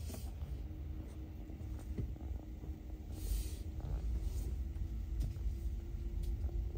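Low rumbling cabin noise inside a Tesla Model 3 as it starts to reverse at walking pace, with a faint steady hum, a few light clicks and a brief hiss about three seconds in.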